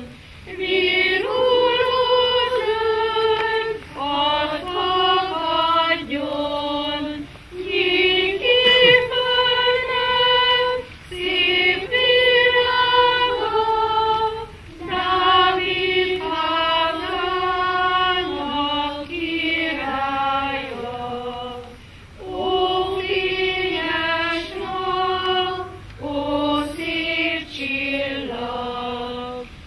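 A children's choir, with a few adult voices, singing a slow song in phrases of long held notes, with short breaths between phrases.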